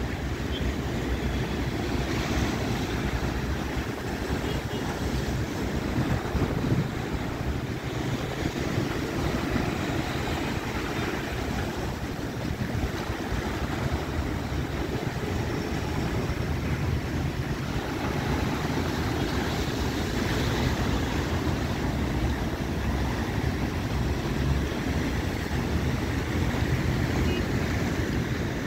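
Sea surf washing and breaking over concrete breakwater blocks, a steady rush of water, with wind rumbling on the microphone.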